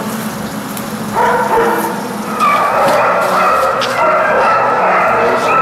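Dogs barking, one bark running into the next.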